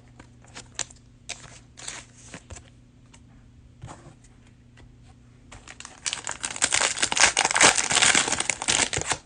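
Trading cards handled with scattered light ticks and taps, then from about six seconds in a loud, dense crinkling as a plastic cello pack wrapper is torn open and crumpled.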